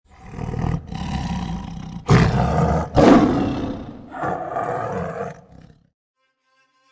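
A big cat roaring, several long roars back to back, loudest in the middle, dying away near the end.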